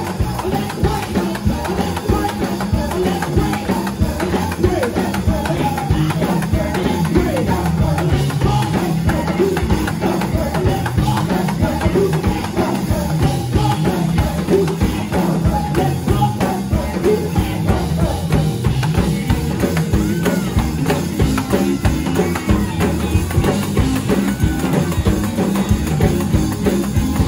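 Live gospel choir music: voices singing over a drum kit with a steady driving beat and shaken percussion.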